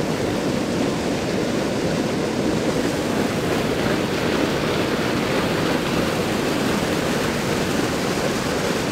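Steady rush of fast water churning and splashing over rocks.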